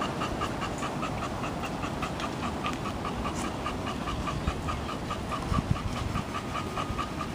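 A dog panting steadily, about four or five breaths a second, over a low outdoor rumble of traffic and wind.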